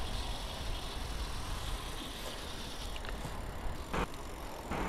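Wind rushing over the microphone and road-bike tyres rolling on asphalt, a steady noise with a heavy low rumble. A short click about four seconds in.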